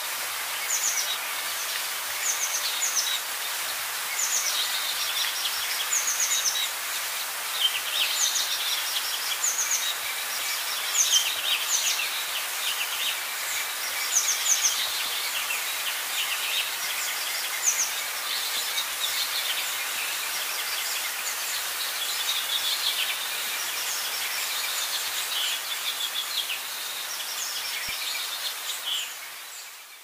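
Birds chirping in many short, quick, high calls over a steady background hiss, fading out near the end.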